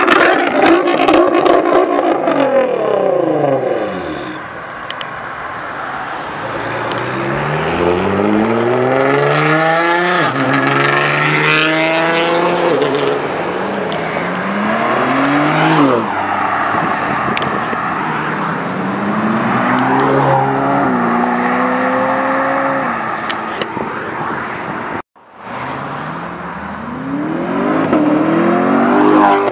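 Loud sports-car engines accelerating hard, revving up through the gears with a sharp drop in pitch at each upshift, several times over. At the start a car passes with its pitch falling away. About 25 s in the sound cuts out for a moment.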